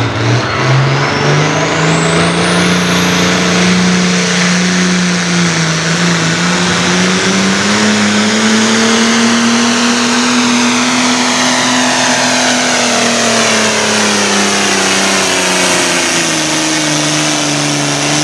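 Diesel farm tractor engine at full throttle pulling a weight-transfer sled. The engine note climbs steeply in the first few seconds with a thin rising whine, keeps rising to a peak around the middle, then sags as the sled's weight bogs it down, and breaks off right at the end.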